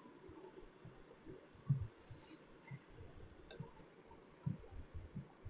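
Quiet room tone with scattered faint low thumps, the strongest a little under two seconds in, and a single sharp click about three and a half seconds in.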